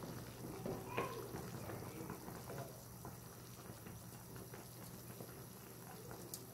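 A pot of chicken tinola soup boiling, with faint bubbling, and a wooden spoon stirring through the broth with a small knock about a second in.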